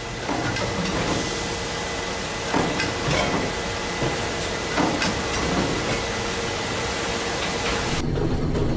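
Glass bottle-making machinery running: a dense even hiss with irregular mechanical clanks and a faint steady hum. About eight seconds in the hiss drops away, leaving a lower rumble.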